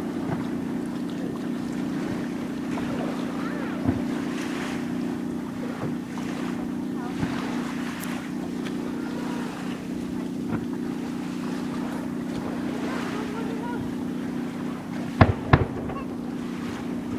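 Fireworks display: a steady low hum throughout, then two sharp firework bangs in quick succession near the end.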